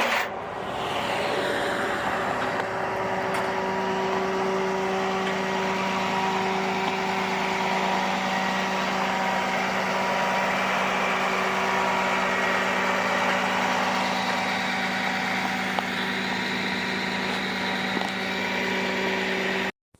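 Car engine idling steadily with an even hum. The sound cuts off abruptly near the end.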